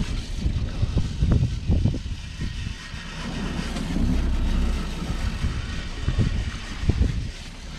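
Wind buffeting the microphone in irregular gusts over the steady rush of seawater along a sailing yacht's hull.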